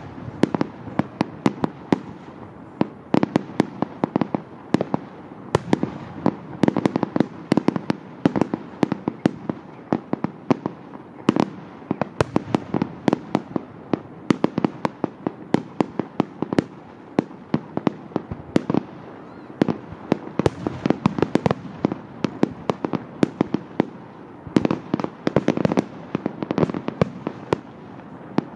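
Aerial fireworks display: a continuous barrage of shell bursts, several sharp bangs a second over a rumbling wash of reports and their echoes.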